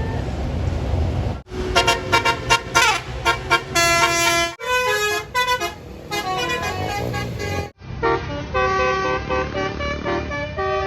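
Bus 'basuri' multi-tone musical horn (telolet) playing quick runs of notes in several bursts that break off abruptly, after a second or so of bus engine and road noise.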